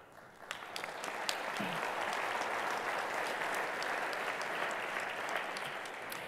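Audience applauding: a few separate claps about half a second in swell into steady applause, which begins to die down near the end.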